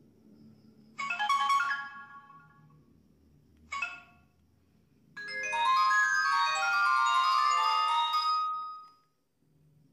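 SMS message-tone previews from a Tiphone T90 feature phone's loudspeaker: a short chiming melody about a second in, a brief blip near four seconds, then a longer bright melody of about three and a half seconds that stops near nine seconds.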